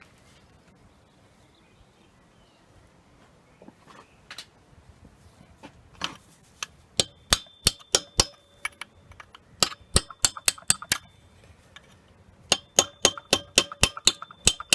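Sharp hammer taps on metal, in quick runs of several strikes with a short metallic ring after each, as the locking tabs on a Honda CB200 engine's oil pump fixings are knocked back. It is faint at first, and the taps start about seven seconds in.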